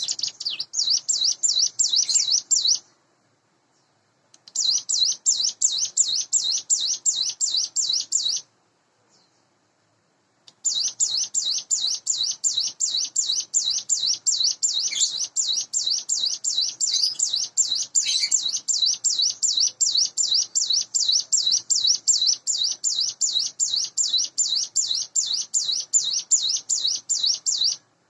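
Hill prinia (ciblek gunung) singing in three long bouts of fast, evenly repeated high notes. The bouts are separated by short pauses, and the last runs for over fifteen seconds.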